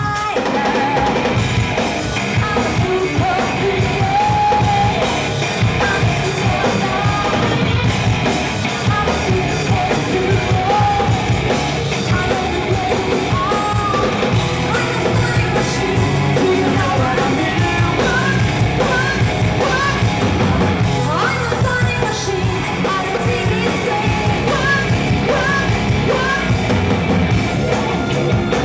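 Rock music with a singer over a full band and drums.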